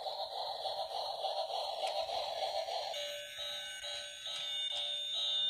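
Battery-powered toy train's small motor and plastic gears whirring as it runs along the track. About three seconds in, an electronic beeping tune starts from the toy's sound chip, pulsing a few notes a second, as the train reaches the lighted bridge section.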